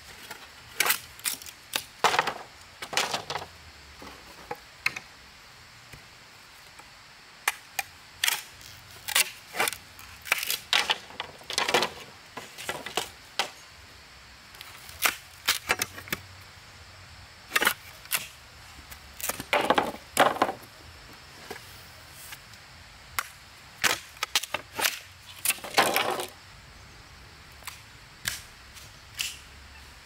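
Irregular series of sharp knocks and strikes, some single and some in quick clusters of two or three, with pauses of a few seconds between groups.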